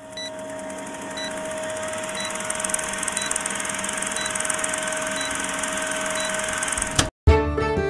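Film-countdown sound effect: the steady whir and hiss of a running film projector, with a short high beep about once a second. It cuts off suddenly about seven seconds in, and music begins.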